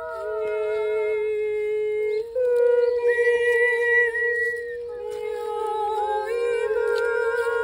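Several women's voices singing long, wordless held notes with vibrato, overlapping in harmony and moving to new pitches every couple of seconds. A higher voice comes in over the others about three seconds in.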